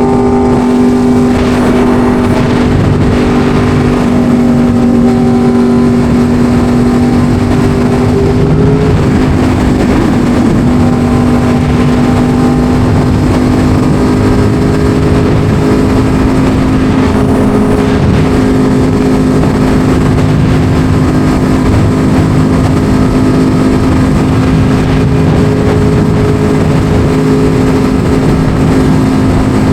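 Motorcycle engine held at a steady speed while riding, its pitch shifting slightly about nine seconds in and then holding again, with rushing wind noise.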